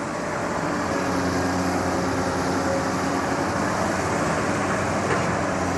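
Hydraulic excavator's diesel engine running steadily under load as the arm smooths the top of a fresh earth embankment, a little louder after the first second.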